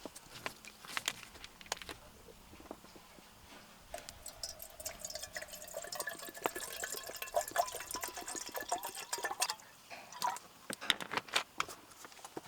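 Liquid poured into a cup for about five seconds, the pitch rising slightly as it fills, with light clinks and taps of tableware before and after.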